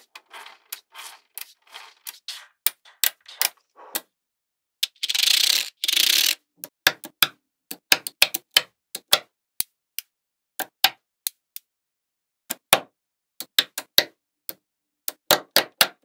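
Small magnetic balls clicking sharply as they snap onto a slab of magnetic balls, in irregular single clicks, with a second and a half of dense rattling about five seconds in.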